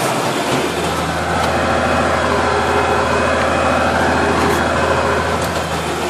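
Tractor engine running steadily under load with the cab fans blowing, heard from inside the cab while the tractor tows a heavy roller: a steady low drone with an even rushing noise over it.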